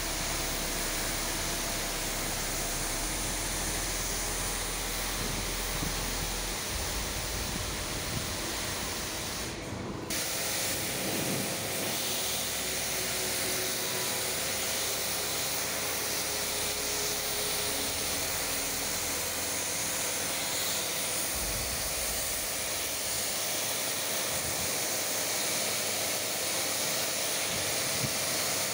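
Pressure washer jet spraying water across a hard stone floor: a steady hiss, with a brief drop-out about a third of the way through.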